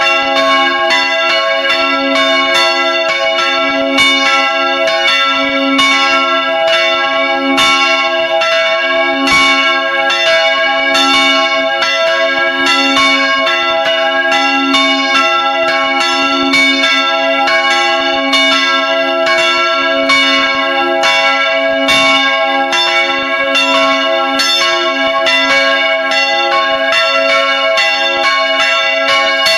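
Several church bells, swung by belt-driven electric motors, ringing together in a full peal heard close up in the belfry: a dense, unbroken stream of overlapping clapper strikes over long ringing tones.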